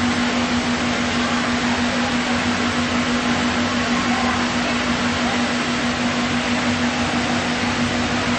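Steady mechanical hum: one constant low tone over an even rushing noise, with no change throughout.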